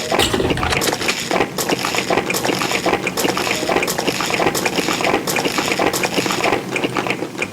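Close-miked eating sounds: a dense, continuous run of crackly crunches and clicks.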